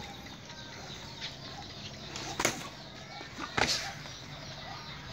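Two sharp slapping impacts of Muay Thai sparring strikes landing on gloves, the first a little over two seconds in and a louder one about a second later.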